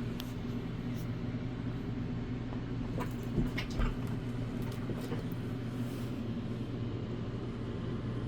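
Steady low mechanical hum, with a few faint clicks and a soft low thump about three and a half seconds in.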